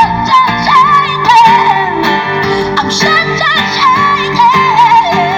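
Live acoustic pop song: a woman's voice singing a wordless, ornamented line with wavering pitch over acoustic guitar.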